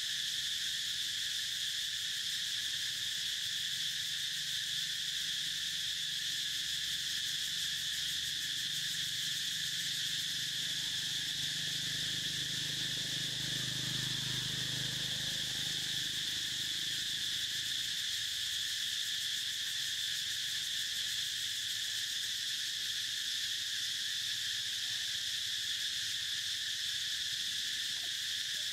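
A dense chorus of insects: one steady, high-pitched drone that holds at an even level without a break.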